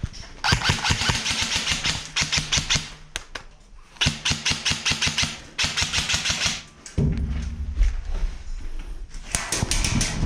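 Airsoft electric rifles firing full-auto, in several separate bursts of rapid clicking shots, the gearbox motor whirring under each burst.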